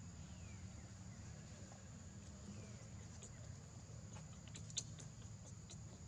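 Quiet outdoor background: a steady faint high-pitched tone over a low rumble, with a few short ticks and one sharper click about three-quarters of the way through.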